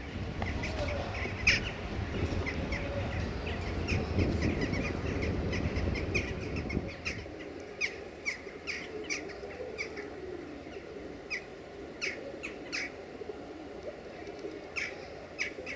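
Birds chirping in short repeated calls with the clap and flutter of pigeon wings, from a flock of feral pigeons, over a low rumble that fades out about seven seconds in.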